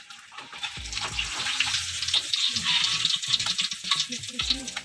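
Hot oil in a wok sizzling and crackling around a whole fried fish as it is lifted out with a slotted spatula and drained. The sizzle grows louder about a second in.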